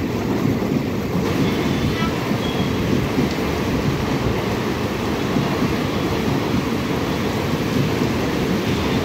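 Express train's passenger coaches rolling past at speed, a steady heavy rumble of wheels on the track, mixed with heavy rain.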